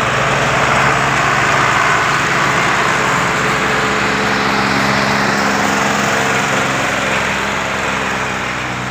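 Massey Ferguson tractor diesel engine running hard under load, straining on a tow chain, at a steady loud level throughout.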